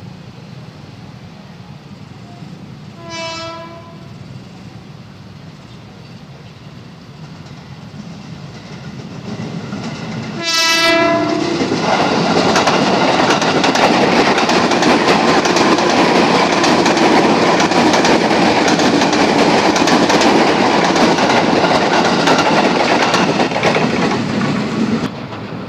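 Ex-JR 205 series electric commuter train sounding its horn twice, a short fainter blast and then a louder one as it nears. It then passes close by with loud, steady wheel and rail noise, which cuts off suddenly near the end.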